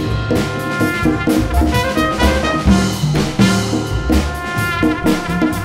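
A small jazz group playing: an open trumpet carries the melody over walking upright bass, drum kit and congas.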